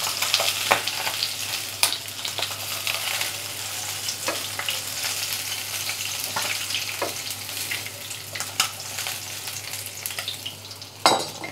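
Catfish pieces frying in hot oil in a non-stick kadai: a steady sizzle with crackling spatters, which the cook says are spitting a lot, while a silicone spatula stirs and lifts the pieces.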